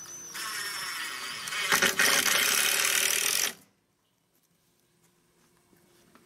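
Cordless drill driving a screw into a wooden board: the motor whirs, then runs louder as the screw bites into the wood, and stops suddenly about three and a half seconds in.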